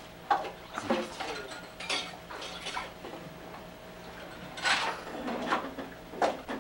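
Dog eating popcorn from a plastic bird-feeder tray, its muzzle knocking and rattling the tray in a string of irregular clatters, the loudest just after the start and about five seconds in.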